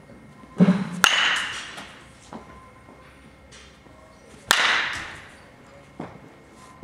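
Batting-practice impacts in an indoor cage hall: a thud and then a loud crack about a second in, another loud crack at about four and a half seconds, and a softer knock near the end. Each one echoes and fades over about a second.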